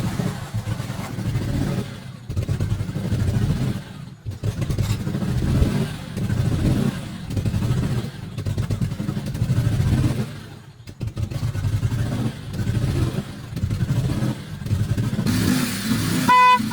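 Repaired vehicle engine running and being revved repeatedly, its sound rising and falling every second or two. Near the end the horn sounds in short beeps.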